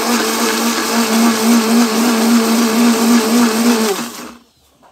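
Electric blender running at a steady hum, churning chopped lime and garlic in liquid. About four seconds in it is switched off and the motor winds down to quiet.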